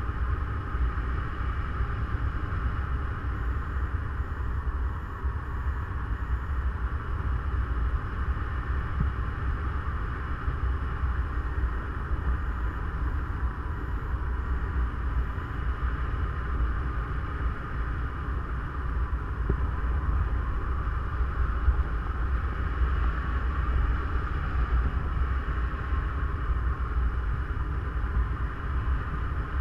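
Wind rushing over the microphone of a camera carried in paragliding flight: a steady low buffeting rumble with a hiss above it.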